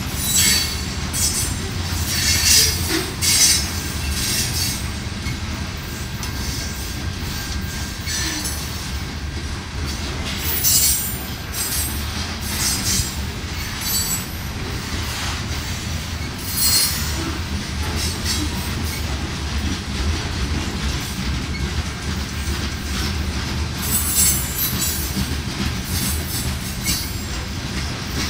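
Empty covered hopper cars of a freight train rolling slowly on a curve: a steady rumble of steel wheels on rail, broken by repeated high squeals of wheel flanges grinding against the curved track and occasional clacks over rail joints.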